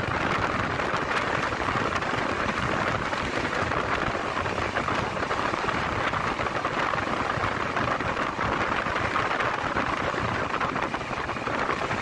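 Passenger train running at speed: a steady rushing noise of wheels on the rails and moving air, with a low rumble underneath and no change throughout.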